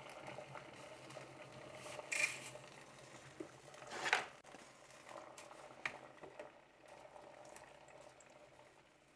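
Water boiling in a stainless steel pot, a faint steady bubbling. There are two short rustling clatters, about two and four seconds in, as dry spaghetti is put into the pot, then a few light knocks.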